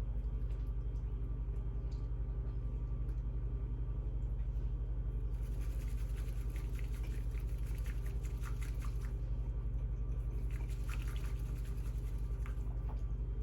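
A steady low electrical hum underneath, with small clicks and crackles of someone eating, thickest from about five to nine seconds in and again around eleven seconds.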